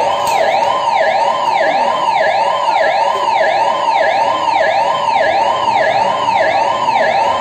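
Electronic siren sounding continuously, its pitch swinging up and down in quick even cycles of about two a second.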